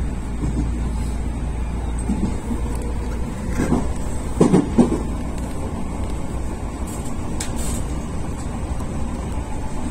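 Odakyu Line commuter train running, heard inside the passenger car as a steady low rumble. A few brief, louder sounds come about halfway through.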